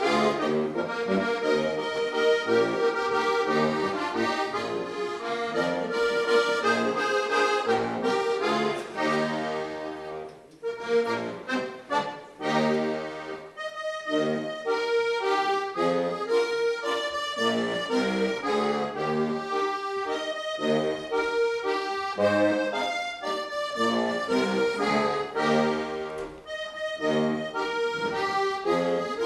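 Accordion playing a lively folk tune, melody over held chords, with a brief lull about ten seconds in.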